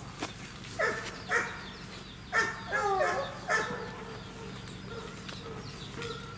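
A dog barking, about five barks between one and four seconds in, one of them longer and wavering in pitch.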